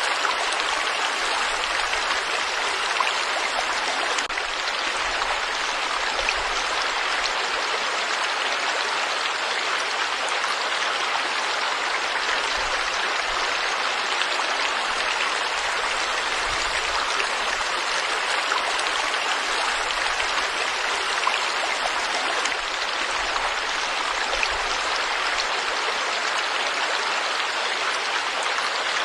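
Forest stream flowing over rocks: a steady, even rushing of water.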